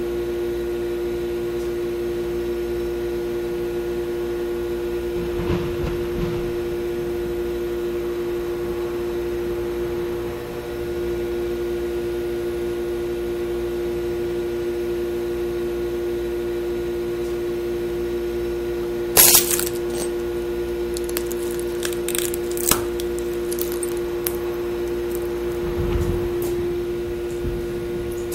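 A steady low drone from the film's suspense soundtrack, holding one pitch throughout. A single sharp crack comes about two-thirds of the way through, a few fainter clicks follow, and a low thud comes near the end.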